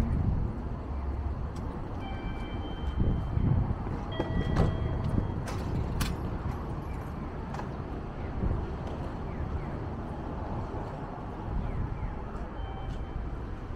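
Outdoor street ambience at a station forecourt: a steady low rumble of traffic, with a few short high tones and a couple of sharp clicks about five to six seconds in.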